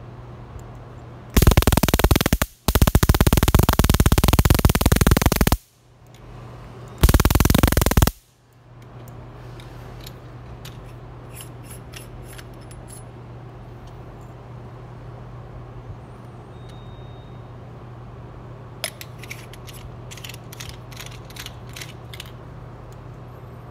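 Stun-gun flashlight firing its electric arc: three loud crackling bursts, about one, three and one second long, each switched on and off abruptly. Later come a few series of light clicks as the flashlight is handled.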